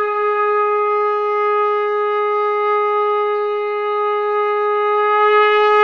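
Conch shell (shankh) blown in one long, steady note held at a single pitch.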